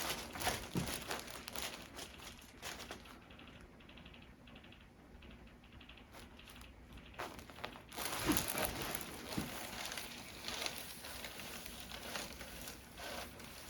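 Soft crinkling and rustling with scattered light clicks from handling a patient on a treatment table. It quietens for a few seconds in the middle, then picks up again.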